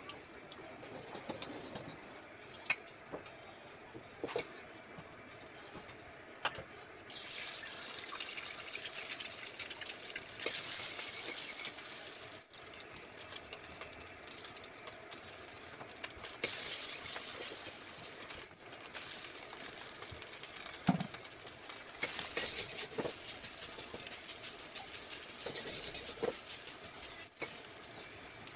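Frying in a wok: hot oil and egg sizzling, the sizzle swelling in surges after several seconds. A metal ladle clinks sharply against the wok now and then.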